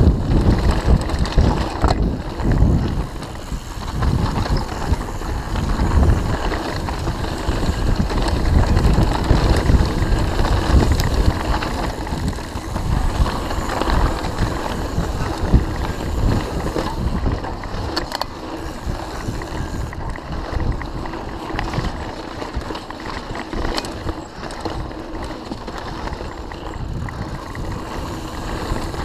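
Mountain bike descending a dirt singletrack: wind rumbling across the GoPro's microphone, with tyres rolling over dirt and the bike rattling over bumps. The rumble is heaviest in the first half and eases later.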